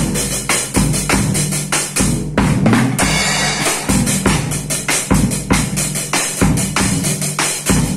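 Mapex acoustic drum kit played with sticks by a small child: a steady run of drum hits over bass-drum thumps, with a cymbal ringing out about three seconds in.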